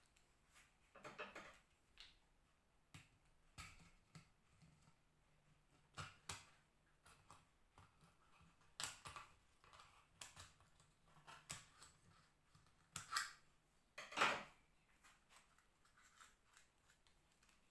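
Kitchen scissors snipping and working at the seal of a small baking powder tin to open it: irregular short clicks, scrapes and rustles, with two louder scrapes about three-quarters of the way through.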